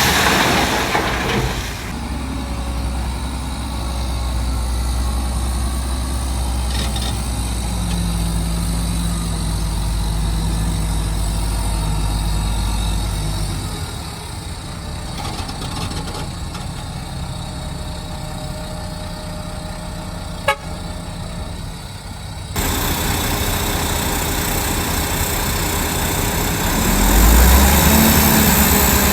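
Heavy diesel engines of earthmoving machinery running: the bulldozer and dump trucks at work. A strong low drone drops away about halfway through, there is one sharp click, and the low rumble swells again near the end.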